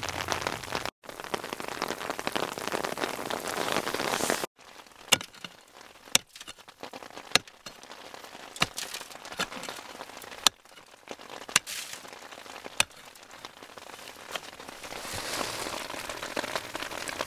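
Steady patter of sleet and rain on an umbrella, joined from about four seconds in by sharp strikes of a pick into the cold frame's frozen soil, a little over a second apart.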